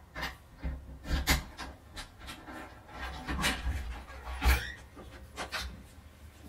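A flat's front door being worked from outside and opened: a run of irregular clicks, scrapes and rattles from the lock and handle, then the door swinging open near the end.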